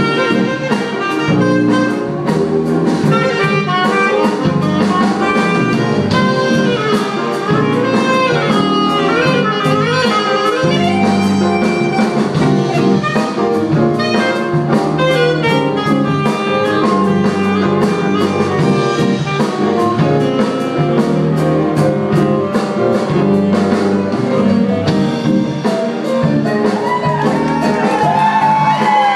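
Live jazz band playing: saxophones carry the tune over electric bass and a drum kit keeping a steady beat.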